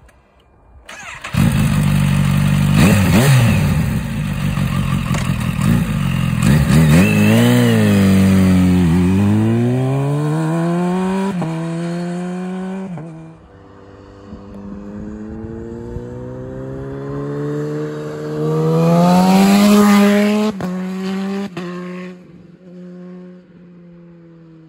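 Kawasaki Z H2's supercharged inline-four through a baffled Scorpion silencer, revving hard and pulling away, rising in pitch and dropping back at each of several gear changes before fading. Near the end it swells and rises again, then dies away.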